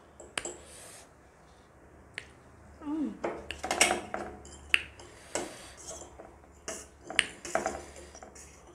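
Metal fork clinking and scraping against a stainless steel serving tray and a ceramic plate, a handful of sharp clinks and short clatters.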